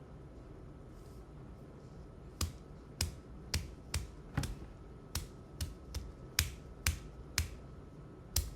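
Fingers flicking a plastic tuberculin syringe to dislodge air bubbles from the drawn-up medication: about a dozen sharp taps, roughly two a second, starting about two and a half seconds in.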